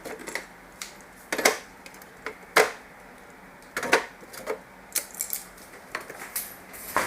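Kitchen utensils clicking and knocking against cookware in irregular sharp taps, with two louder knocks about one and a half and two and a half seconds in.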